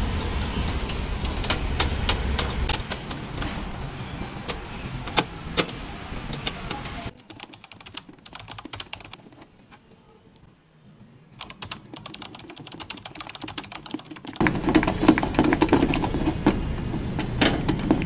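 Many small clicks and taps of hands handling a car door lock knob, with a threaded aluminium knob being screwed onto the lock rod by hand. The clicks thin out and go much quieter for several seconds in the middle, then pick up again near the end.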